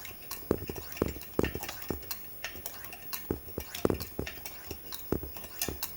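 Coleman 220K gasoline lantern's hand pump being worked to pressurise the fuel tank: a run of short metallic clicks and knocks, about two strokes a second.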